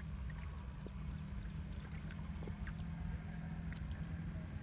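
Steady low rumble with faint, scattered light ticks over it.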